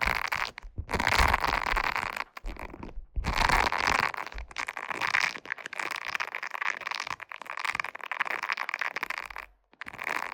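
Silicone brush rubbed in scratchy brushing strokes, each lasting a second or more and broken by brief pauses.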